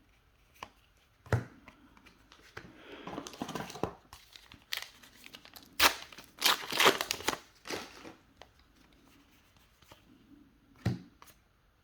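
A foil booster pack wrapper being torn open and crinkled, the loudest tearing and crinkling in the middle, with a few short clicks around it.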